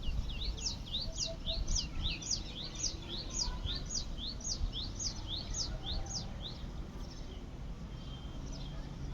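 Small birds chirping: a fast run of short, high, downward-slurred chirps, several a second and overlapping, that stops about six seconds in. A steady low rumble sits underneath.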